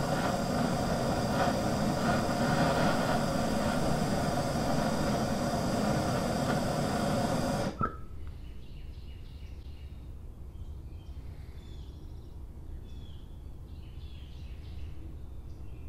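Handheld gas torch burning with a steady hiss while it heats an oxygen sensor in an exhaust manifold. About halfway through the flame is shut off: the hiss cuts out suddenly with a brief pop.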